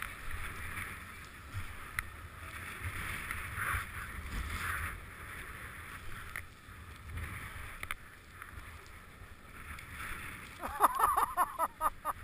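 Skis sliding over groomed snow with a steady hissing scrape, with wind rumbling on the camera microphone and a few small clicks. Near the end a person's voice calls out briefly in a quick run of loud bursts.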